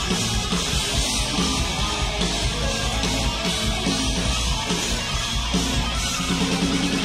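Rock band playing heavy metal live, with electric guitar over a dense, steady wall of sound.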